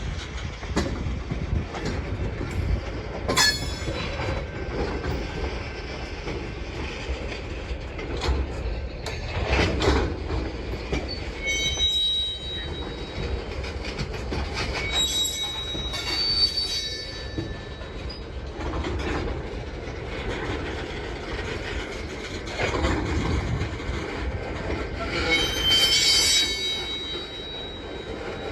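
Freight train rolling past with a steady rumble and rail clatter, its steel wheels squealing against the rail in short high-pitched bursts several times.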